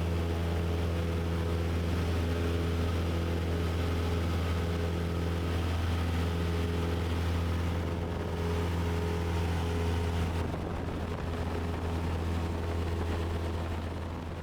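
Cessna 172's four-cylinder piston engine droning steadily at full climb power just after takeoff, heard through the headset intercom as a low, even hum with a buzz above it. The sound fades out near the end.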